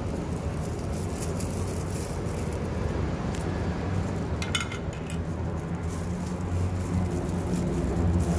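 A motor vehicle engine running steadily, getting louder toward the end, with a brief rattling clatter about four and a half seconds in.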